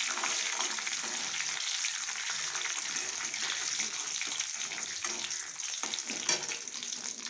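Fennel seeds, mustard seeds and urad dal sizzling in hot sesame oil in a metal kadai while a metal ladle stirs and scrapes them around the pan, with a louder knock of the ladle about six seconds in. This is the tempering stage before the onions go in.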